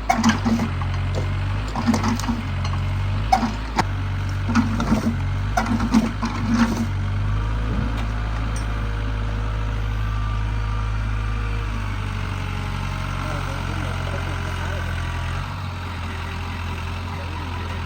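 Excavator's diesel engine running steadily, with a run of sharp knocks and clatter over the first seven seconds, then a steadier stretch with a faint whine that wavers in pitch.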